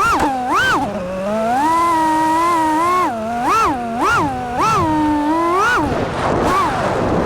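FPV racing quadcopter's brushless motors whining, the pitch swooping up sharply and dropping again over and over with quick throttle punches, with steadier stretches in between.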